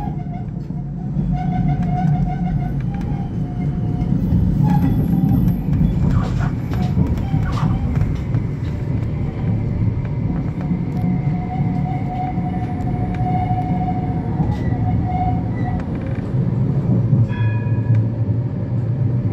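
Rail vehicle running on track: a steady low rumble, with a whining tone that fades in and out several times and a few short clicks.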